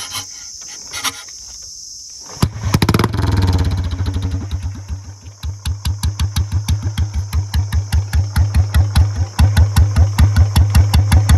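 Royal Enfield Bullet's 350 cc single-cylinder engine running with no silencer fitted: it starts about two and a half seconds in with a short blip of throttle, then idles with a slow, even, open-exhaust beat of about four pulses a second, a little louder near the end.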